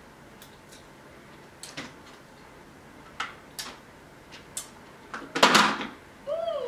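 Close-up eating sounds from a person chewing a mussel: scattered mouth clicks and smacks, then a loud breathy, noisy burst about five and a half seconds in, followed by a short hummed vocal sound that rises and falls.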